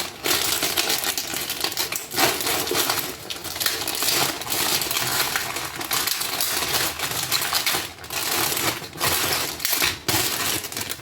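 Dense clicking and crinkling handling noise as stuffed pasta shells are worked into a baking pan, going on without pause with many sharp little clicks.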